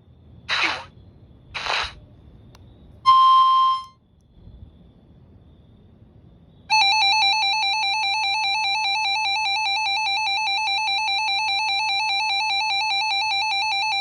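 RadioShack 12-257 weather radio sounding its alert for a Severe Thunderstorm Warning. Two short hissing bursts and a brief steady beep come first. About seven seconds in, a loud, rapidly warbling alarm tone starts and keeps going.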